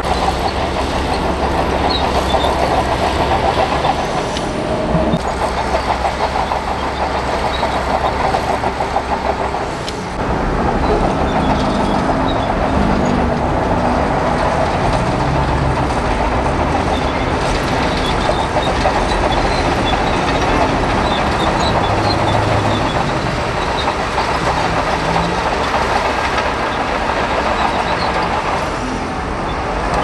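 Diesel engines of heavy earthmoving machinery, a Shantui bulldozer and dump trucks, running steadily. The low engine note changes about ten seconds in.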